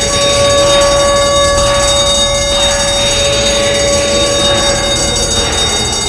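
Arena goal horn blowing one long, steady tone over a dense, loud wash of noise.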